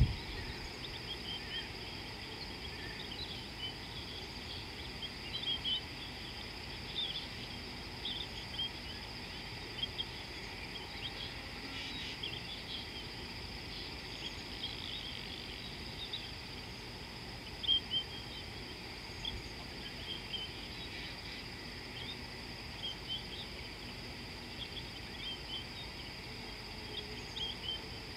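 Bush ambience: a steady high-pitched insect drone, with many short bird chirps scattered over it and a few louder ones.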